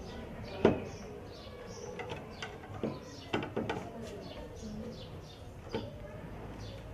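A series of sharp metal clicks and taps from a small hand tool being worked into a door lock, the loudest under a second in. Birds chirp faintly in the background.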